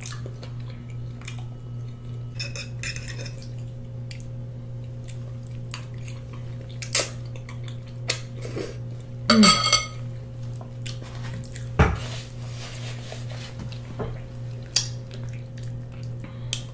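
Close-up eating sounds of oxtails eaten by hand: mouth smacks and sucking on the meat and bones, with scattered sharp clicks and clinks against a metal platter, over a steady low hum. The loudest mouth sound comes about halfway through.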